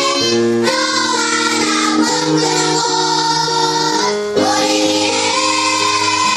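A children's song: music with children's voices singing, in long held notes.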